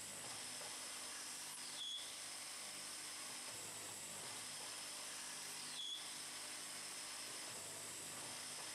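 Cam-controlled automatic bead lathe (German-built, 1988) running, its form knives turning wooden beads from a wooden bar with a steady hissing whir. Twice, about four seconds apart, a short falling whine settles on one pitch as the machine goes through its cycle.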